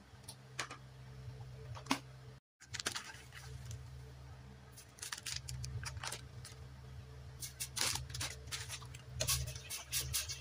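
Scattered clicks and light taps of a spatula against a stainless-steel cooking pot as spices are stirred, over a steady low hum. The taps come thicker in the second half.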